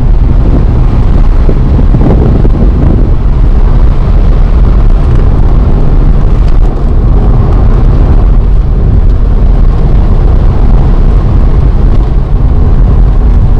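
A car on the move: steady low engine and road noise, with heavy wind buffeting on the microphone.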